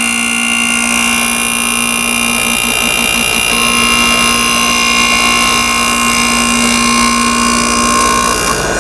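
Samsung split air conditioner's outdoor unit running on a test start: its 220 V rotary compressor and condenser fan make a loud, steady hum with a low tone and a high whine. Running after a new thermal overload protector was fitted, the sign that the protector is installed correctly. The low tone wavers briefly about two and a half seconds in, and a mid-pitched tone joins about a second later.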